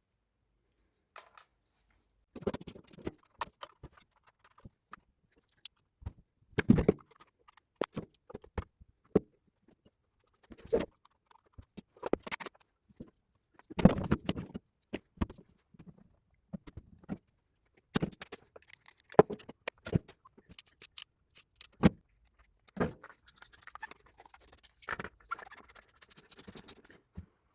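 Irregular clinks, knocks and scrapes of metal parts and hand tools being handled and set down during a Hilti TE 70 hammer rebuild, with a longer scraping stretch near the end.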